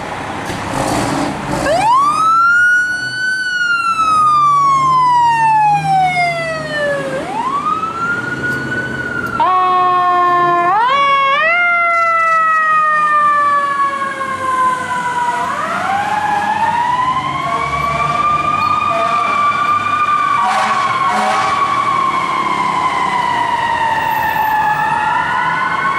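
Fire apparatus sirens sounding as an engine and ladder truck leave quarters. A siren winds up quickly and falls slowly, twice. Quick stepped sweeps follow about ten seconds in, then a slow rising and falling wail.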